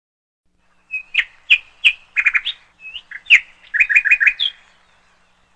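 A bird chirping: a string of sharp, quick chirps starting about a second in, with a fast run of notes near the end, then it stops.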